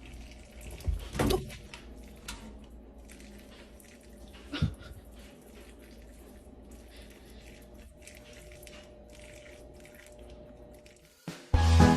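A dog making a couple of short, faint sounds, about a second in and again a little before the middle, over a quiet room background with a few light clicks.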